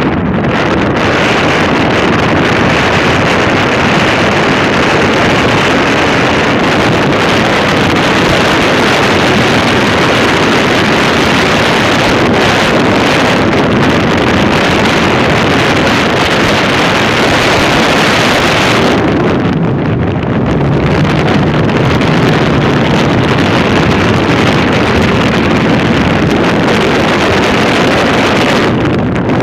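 Loud, continuous wind buffeting the microphone, a rough roar with no pitch to it that eases briefly about two-thirds of the way through.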